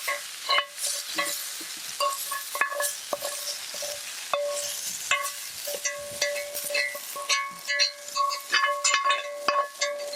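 Vegetables and garlic sizzling in a cast iron skillet over campfire coals while being stirred, a utensil clicking and scraping against the pan again and again, some strokes leaving the pan ringing briefly.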